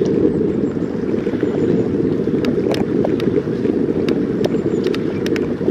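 Wind buffeting the microphone of a camera on a moving bicycle: a loud, steady low rumble, with scattered light clicks and rattles on top.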